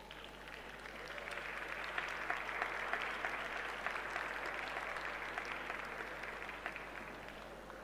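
Audience applauding, swelling over the first couple of seconds and fading away near the end, with single claps standing out.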